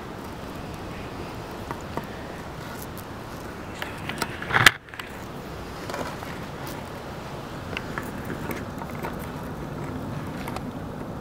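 Steady outdoor background noise with faint scattered clicks. A loud crackling burst about four and a half seconds in cuts off abruptly.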